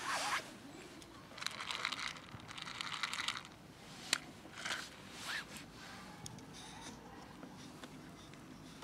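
Dry cat kibble rattling and crackling as it is tipped out of a plastic container onto dirt, a rough stretch of about two seconds, followed by a few single clicks and scuffs.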